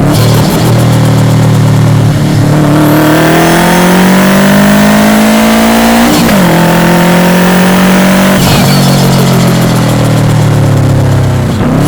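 Subaru Impreza WRX's EJ207 turbocharged flat-four engine pulling up through the revs under acceleration, its pitch rising steadily for about five seconds. About six seconds in the revs drop sharply at a gearshift, then the engine holds and slowly eases back.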